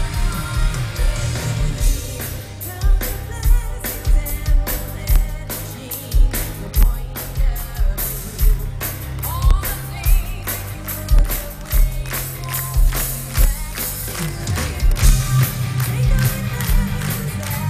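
Symphonic metal band playing live: a female lead singer over distorted electric guitars, keyboards, bass and pounding drums, with a heavy low end.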